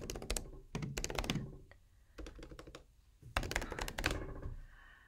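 Typing on a computer keyboard: three short runs of quick keystrokes with pauses between.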